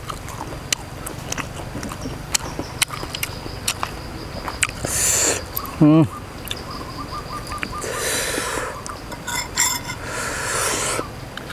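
Close-miked eating: a person chewing fried meatballs, with many short wet clicks and smacks and a few breathy swells. A brief falling hum of a voice about six seconds in.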